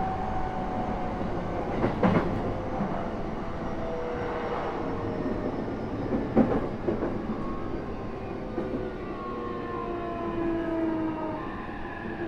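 Inside an E233-3000 series electric train slowing for a station: the traction motor whine runs in several tones that fall slowly in pitch as the train brakes. Two wheel clacks over rail joints come about two and six seconds in.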